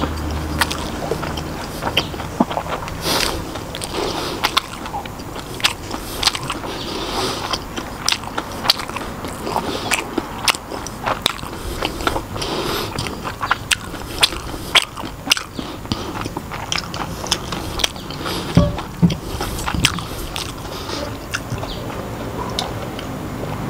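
Close-miked chewing of crispy fried battered mushrooms: a dense run of sharp, irregular crunches and mouth clicks. Near the end the crunching gives way to drinking.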